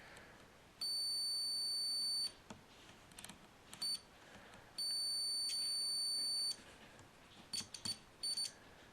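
A multimeter's continuity beeper sounding a high steady tone: two long beeps of about a second and a half, then a few short chirps near the end as the probe touches keyboard traces. Each beep means the trace makes an electrical connection.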